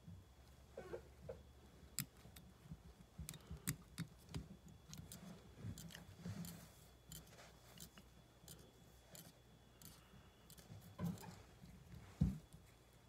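Fly-tying handling sounds at a vise: irregular small clicks and snips as scissors and tools work the materials on the hook, over a low steady hum, with a louder knock near the end.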